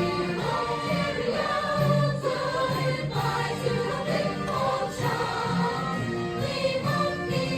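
A musical-theatre chorus singing together over instrumental accompaniment.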